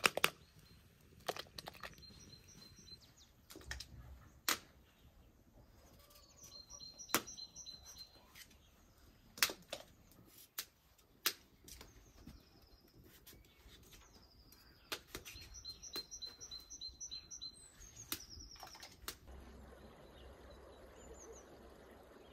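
Scattered sharp clicks and knocks of a knife working raw potatoes as they are peeled, with a small songbird singing several short runs of quick, high, evenly repeated notes.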